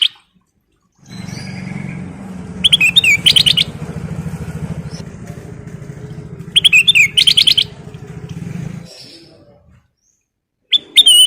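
Kutilang emas, a bulbul, singing short bright warbled phrases, each about a second long, three times. Under the first two a steady low engine drone runs from about a second in and fades out near nine seconds.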